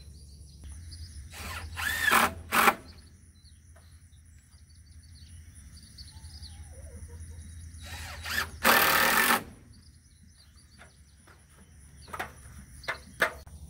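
Cordless drill driving screws into wooden roof purlins. There are two short runs near the start, a longer run of about a second in the middle, and a few brief blips near the end.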